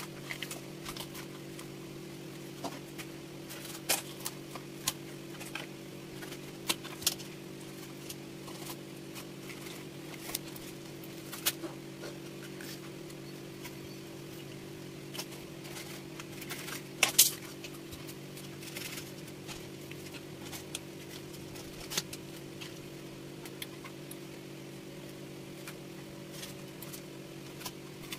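Scattered short clicks, taps and scrapes of a triggerfish being skinned and cleaned by hand and knife on a wooden chopping block, with a louder cluster a little past the middle. A steady low hum runs underneath.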